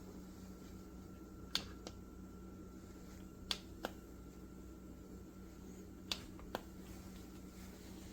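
Electric coffee percolator perking: faint sharp pops in pairs, a second softer pop following each first one, about every two and a half seconds over a steady low hum.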